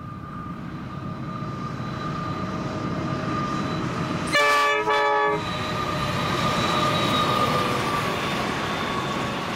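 Pacific National NR class diesel-electric locomotives approaching and passing, their rumble growing louder. About four seconds in come two short horn blasts in quick succession, a chord of several tones and the loudest sound. Then the rumble of the freight wagons rolling past.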